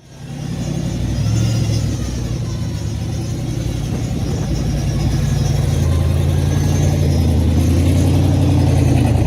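Drag race car's engine starting up and running at a loud, steady fast idle. It comes in abruptly and builds over the first second, with a small rise in pitch about halfway through.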